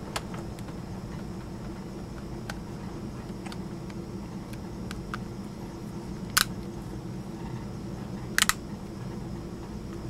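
An iPod 5th generation's case being pressed shut by hand, giving a few short clicks as the back snaps onto the front. The sharpest is about six and a half seconds in, then a quick pair about two seconds later. A steady low hum runs under them.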